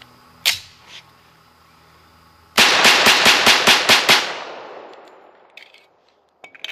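Sig Sauer 1911 Fastback Nightmare pistol fired rapidly, about eight shots at roughly five a second, with the echo dying away over the next two seconds. The shots come after a single metallic clack about half a second in, the slide going home on a fresh Sig magazine. The gun cycles through the string without a stoppage.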